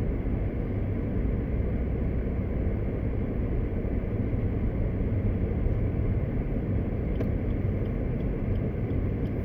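Steady low rumble of road and engine noise from a Suzuki Baleno RS moving at low town speed, heard from inside the car.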